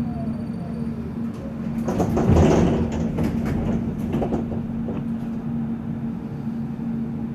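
Tram (streetcar) with a steady electric hum. A louder rushing noise swells about two seconds in, followed by several clicks and knocks.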